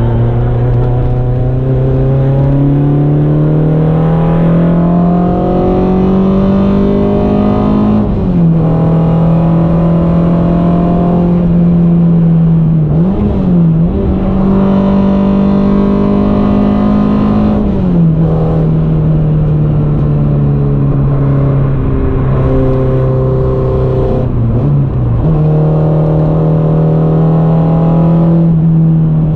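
Modified Peugeot 106 Quicksilver's four-cylinder engine heard from inside the cabin under hard driving. Its note climbs steadily for several seconds, then falls sharply at a gear change. It holds high with two brief dips and recoveries, and settles to a lower steady note partway through.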